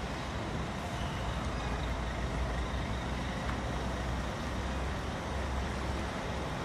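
Sleeper coach's 425 hp diesel engine running as the coach moves slowly at low speed, a steady low rumble.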